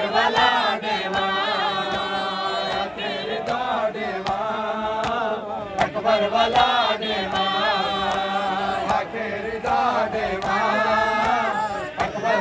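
A crowd of men chanting a Saraiki noha together in mourning, over a steady beat of sharp slaps, about one every three-quarters of a second, from hands striking bare chests in matam.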